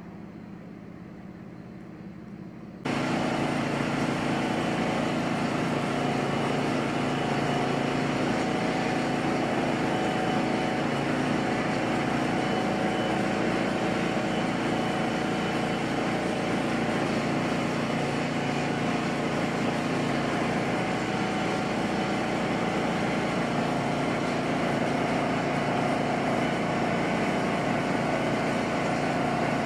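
Small gasoline engine of a portable generator running at a steady speed. A fainter hum comes before it, and the louder engine sound comes in suddenly about three seconds in.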